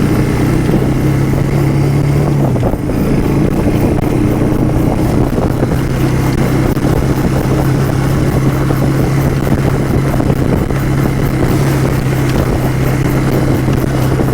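Vehicle engine running steadily at a constant speed, easing slightly to a lower pitch about two and a half seconds in.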